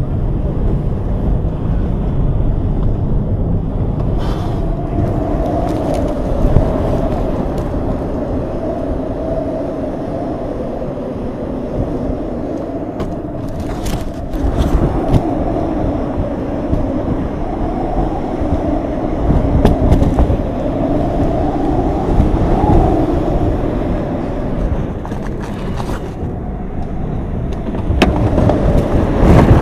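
Road rumble and wind noise inside a moving car, with a wavering whine through the middle and scattered knocks and rattles; the noise grows louder near the end.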